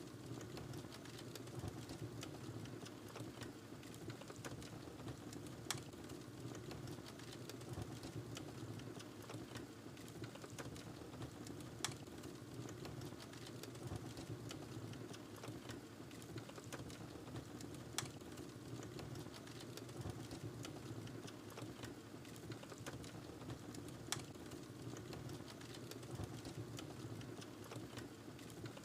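Wood fire crackling in a fireplace: a soft steady hiss and rumble of flames with constant small crackles, and a sharper pop about every six seconds.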